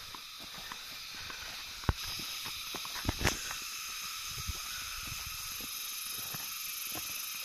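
Footsteps of people walking a dirt trail over a steady high hiss, with a sharp knock about two seconds in and two more just past three seconds.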